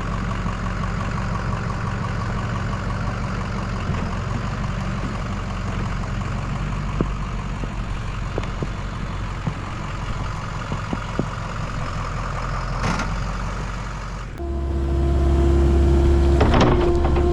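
Heavy equipment's diesel engine running steadily, with scattered sharp knocks and clanks. About fourteen seconds in, the sound switches abruptly to a louder, deeper steady drone with a held tone.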